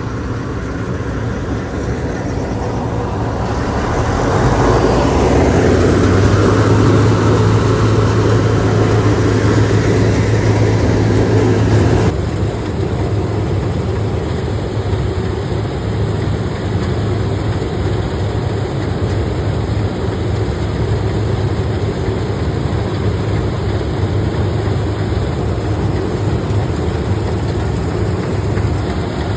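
Engine of a rice-harvesting machine running steadily with a strong low hum, swelling louder for several seconds, then dropping to a slightly quieter steady run abruptly about twelve seconds in.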